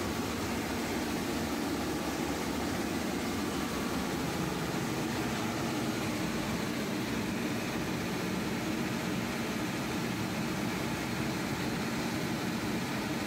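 Ship's emergency diesel generator engine running steadily under its post-start test run: an even mechanical drone with no change in speed.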